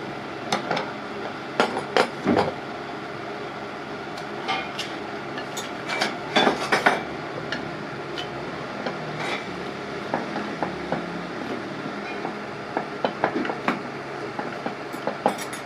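Metal parts clinking and knocking irregularly, as loose engine parts are handled and set down, over a steady background hum.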